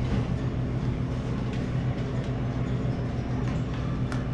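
Steady low machinery hum with a few faint light clicks and knocks, one slightly louder near the end.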